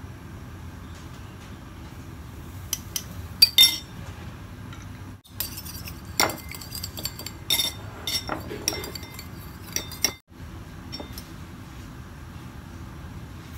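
Metal spoon clinking against a ceramic bowl: a few sharp taps about three seconds in, then a run of clinks and scrapes from stirring the sauce in the bowl, from about six to ten seconds in.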